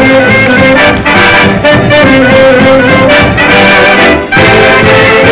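Swing jazz with brass horns out front over a steady beat, with two brief dips in the music.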